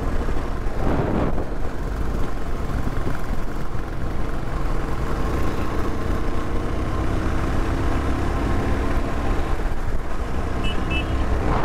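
Yezdi Scrambler's single-cylinder engine running at a steady cruise, heard from the rider's seat along with road and wind noise.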